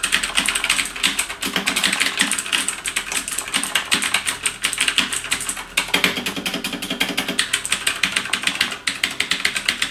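Typing on an AUKEY KM-G6 mechanical keyboard with Outemu Blue switches: a fast, steady run of loud, clicky keystrokes, with a couple of brief pauses.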